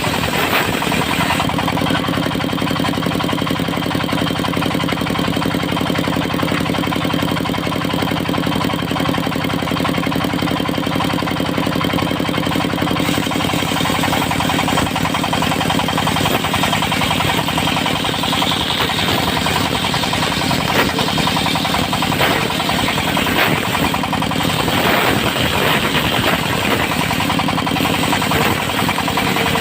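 Engine of a portable circular-saw sawmill running steadily, with a few sharp knocks in the latter half.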